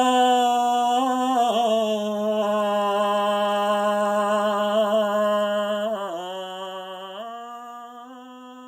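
A man's voice holding one long sung tone as a vocal toning exercise for a tight, stuck-feeling throat, with a slight waver. The pitch steps down a little about a second and a half in and back up about seven seconds in, and the tone grows quieter toward the end.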